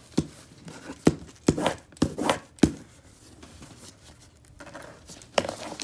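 A pen jabbing and scribbling on a sheet of paper laid on a cardboard box, the pen in a capuchin monkey's hands. About six sharp taps come in the first three seconds and one more near the end.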